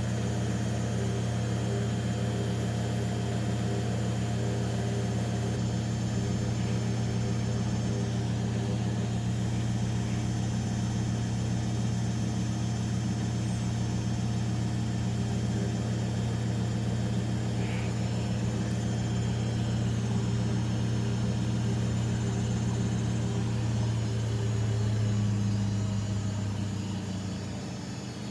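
Bauknecht WA Aquaton 1400 washing machine running early in a 60 °C cottons cycle: a steady low mechanical hum. The hum swells briefly about 25 seconds in, then drops back near the end.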